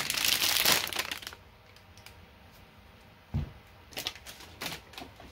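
Metallic anti-static bag crinkling as a 3.5-inch hard drive is pulled out of it, loud for about the first second. Then there is a dull thump about three seconds in, as the bare drive is set down on the desk mat, and a few light crinkles of the bag near the end.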